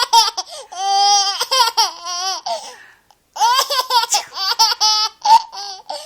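Baby laughing in high-pitched bursts of giggles, in two bouts with a short pause about halfway through.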